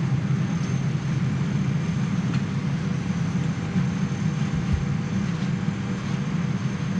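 Steady rumbling hum of an airliner cabin's air-handling system running while the plane is parked, with a faint thin whine above it and one soft low thud about three quarters of the way through.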